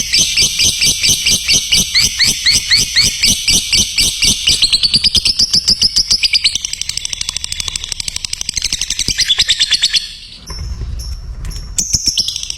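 Lovebird singing its long, rapid 'ngekek' chatter: a fast run of repeated high chirps, about five a second, that quickens midway and breaks off briefly about ten seconds in before starting again.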